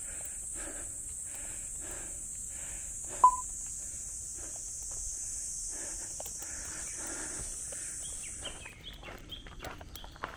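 Footsteps of a hiker on a dirt forest trail, about one step every 0.7 seconds, under a steady high-pitched buzz that cuts off near the end. A single sharp click about three seconds in is the loudest sound.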